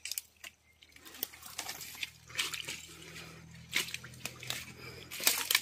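Rustling and crackling of dry leaves and undergrowth as someone pushes through and treads on it, in irregular short strokes, with the loudest crackles near the end.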